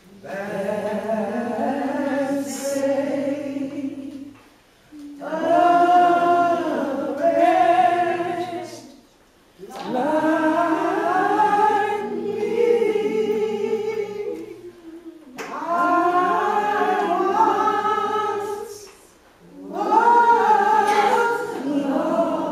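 A group of voices singing a hymn together, in phrases of about four to six seconds with short breaks between them.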